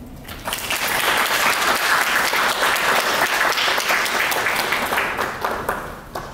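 Audience applauding. The clapping rises about half a second in and dies away near the end.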